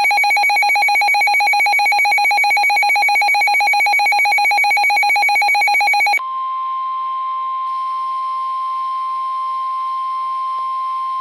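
Emergency weather alert tones. First a rapidly pulsing, buzzing electronic alarm tone, which switches abruptly about six seconds in to a steady single-pitched tone near 1 kHz: the NOAA Weather Radio warning alarm tone that comes before a warning message.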